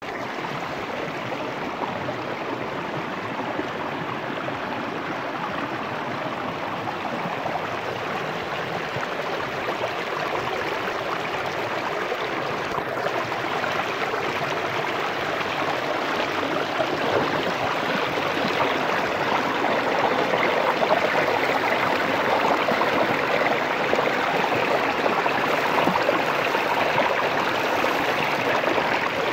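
Shallow creek water rushing steadily over rocks and through a metal sluice box, growing gradually louder.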